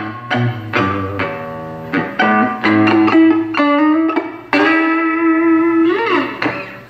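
Electric guitar played through a handbuilt Blues Howler valve amp with an EF86 pentode preamp tube: a run of single picked notes, then a note held for about a second and a half that bends near the end.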